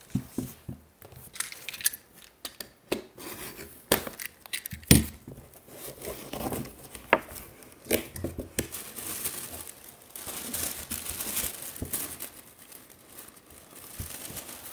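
Cardboard box being unpacked by hand, with tissue paper crinkling and tearing. Sharp knocks of handling come in the first few seconds, the loudest about five seconds in, and a longer stretch of steady rustling follows near the end.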